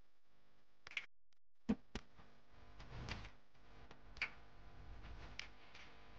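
A few sharp knife clicks against a plastic plate as onions are sliced by hand, with faint rustling of cabbage being cut in between.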